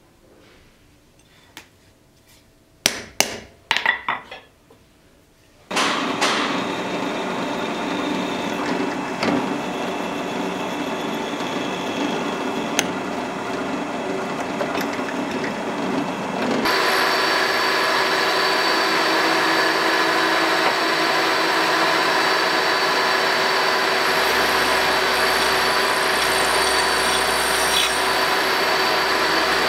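A few sharp metal taps, then a drill press drilling through a pattern-welded steel plate with a steady cutting noise. About 17 s in it changes to a milling machine's end mill cutting a slot in the plate, louder, with a steady high whine.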